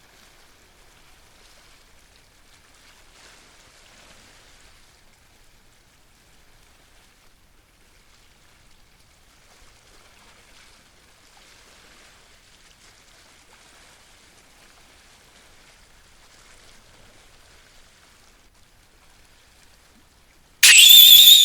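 Faint wash of sea water swelling and easing on shore rocks, then near the end a sudden, very loud high warbling tone that lasts under a second.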